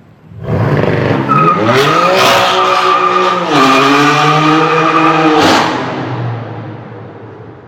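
BMW M4 F82's twin-turbo straight-six with an aftermarket Fi exhaust accelerating hard, its pitch rising, dropping at a gear change about three and a half seconds in, then climbing again, with a few sharp cracks. The sound fades as the car pulls away.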